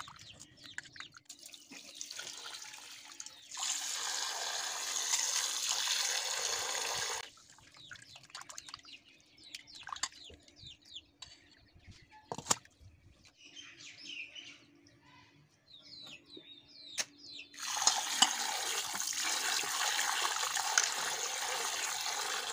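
Tap water running into a steel bowl of raw chicken pieces in two spells of about four seconds each, with small splashes and sloshing between them as the chicken is washed by hand.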